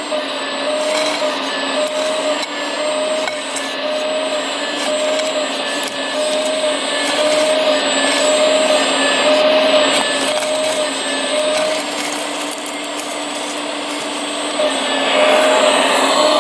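Radio-controlled scale excavator working: a steady motor whine with a pulsing tone that repeats about one and a half times a second, growing louder near the end.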